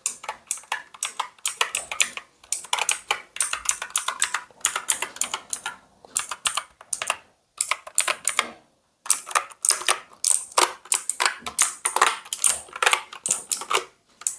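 Rapid typing on the ANT Esports MK3400 Pro V3 mechanical keyboard, a dense run of key clacks with a short break about eight to nine seconds in. The keys sound smooth.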